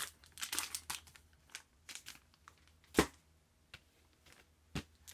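LP record jackets in plastic sleeves being handled and shuffled: crinkling and sliding with several sharp knocks, the loudest about three seconds in and another near the end.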